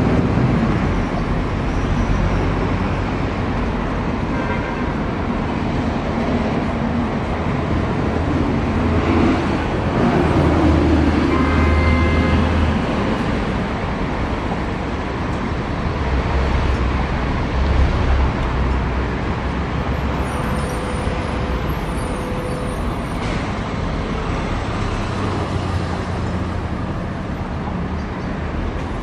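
Steady road traffic noise from passing cars and buses, with a low engine hum that swells and fades and a brief pitched tone about twelve seconds in.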